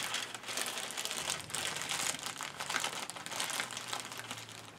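Clear plastic zip-top bag crinkling and rustling in irregular crackles as a hand works inside it.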